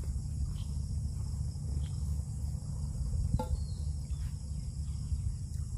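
Crickets chirring steadily over a low rumble, with a few faint clicks as hands pick through a pile of snail shells.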